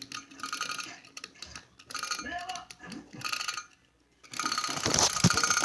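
Wind-up drumming clown toy being wound: ratcheting clicks of the key turning the clockwork spring. After a short pause the mechanism is released and runs, the clown tapping its drum in a rapid, steady rattle that is louder than the winding.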